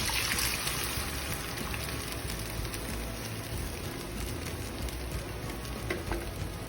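Curd-and-gram-flour curry base sizzling in hot oil, ghee and spices in a pan, loudest just after it goes in and settling into a steady crackling sizzle.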